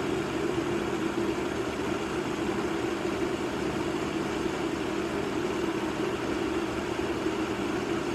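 Water boiling hard in a stainless steel pot on an induction cooker running at maximum power, together with the cooker's cooling fan: a steady, unbroken hum with bubbling. The cooker is heating at full power again after its repair for insufficient heating power.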